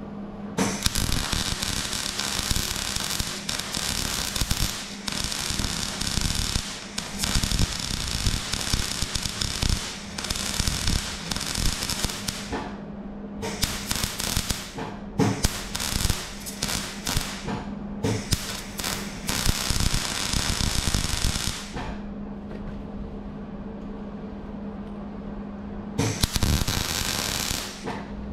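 Electric welder crackling and spitting as weld is laid into a steel chassis member: one long run of about twelve seconds, then several shorter runs with brief stops, the last near the end. The welder is turned up high for plenty of heat and penetration. A steady low hum runs under it.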